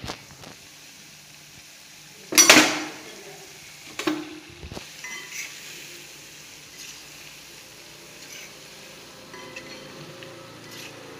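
A metal ladle clatters and scrapes against a black kadai as it stirs and turns batter-coated cauliflower deep-frying in hot oil, over a steady sizzle. The loudest clatter comes about two and a half seconds in, with a sharper knock a second and a half later and lighter taps after.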